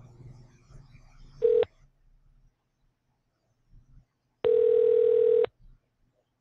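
Ringback tone of an outgoing Skype call: a short beep about a second and a half in, then a steady one-second tone about four and a half seconds in, both at the same mid pitch.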